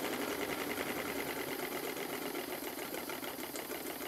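Stuart Models triple expansion model steam engine running on live steam with a fast, even mechanical beat. It is running well now that the condensed water has cleared from the cylinders and been blown out to exhaust.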